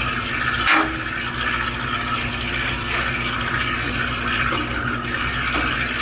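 Fishing boat's engine humming steadily at sea, with water washing and sloshing against the hull. A brief knock under a second in.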